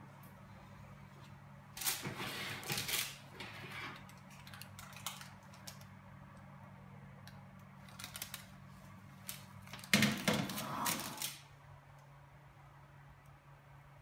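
Clattering and scraping of kitchen utensils: a metal spatula and a baking tray knocking against a frying pan and the stove, in two bursts, over a low steady hum.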